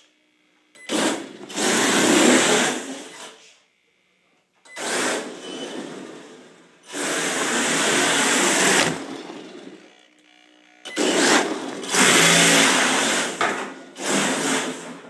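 HPI Pro D RC drift car making repeated passes across a smooth hard floor: its electric motor whining and its tyres hissing as they slide, each pass rising and fading away, about five in all with short quiet gaps between.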